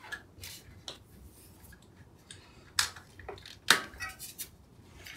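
Scattered light clicks and knocks of a carbon road wheel and tubeless tire being handled and turned by hand to spread sealant inside, with two sharper knocks a little under 3 and 4 seconds in.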